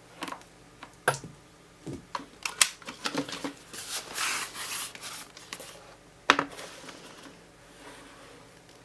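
Handling sounds of a Lenovo W530 laptop as its power cord is unplugged: scattered plastic clicks and taps, a longer rubbing scrape about four seconds in, and a sharp knock a couple of seconds later, the loudest of them.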